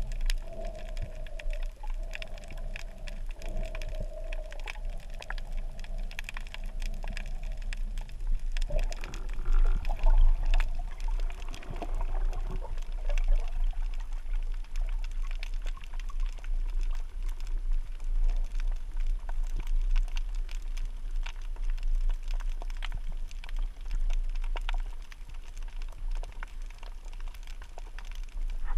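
Underwater ambience: a dense crackle of small clicks over a steady low rumble, with a faint wavering hum through the first third that warbles up and down briefly around the middle before fading out.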